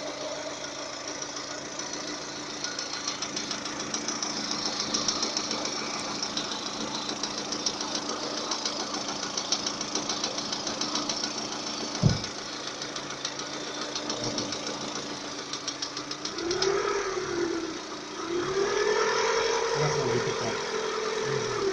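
Lada Kalina VAZ-11194 four-cylinder engine running hot with a rapid metallic knock that the owner places in the fourth cylinder, near the connecting rod's small end, appearing once the engine reaches 90 degrees after a rebuild. Near the end the engine speed rises, dips briefly and rises again.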